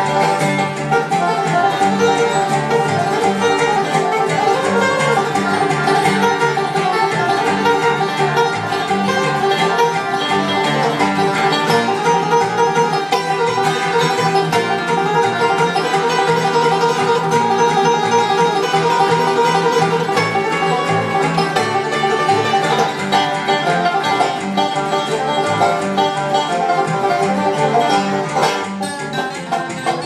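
Acoustic bluegrass instrumental played on banjo, acoustic guitar and upright bass together at a steady tempo.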